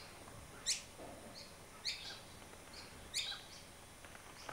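A small bird chirping: three sharp calls that each fall quickly in pitch, about one every second and a quarter, with fainter short chirps in between.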